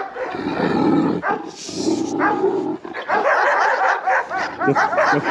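Several dogs barking at once in a dense, overlapping chorus, heaviest in the second half: village dogs confronting a leashed Kangal.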